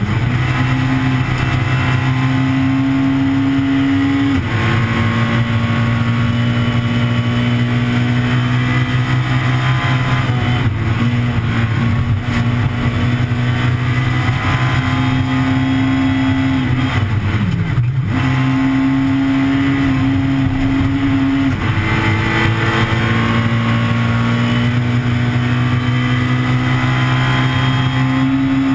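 Peugeot 207 S2000 rally car's 2.0-litre naturally aspirated four-cylinder engine running hard at high revs, heard from inside the cockpit. The revs hold steady for long stretches, with small steps at gear changes, and dip sharply and pick back up about two-thirds of the way through.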